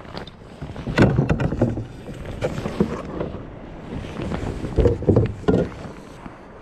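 A hooked fish being reeled in to a kayak: a baitcasting reel cranking, water sloshing, and several sharp clicks and knocks of gear, the loudest about a second in and near five seconds in.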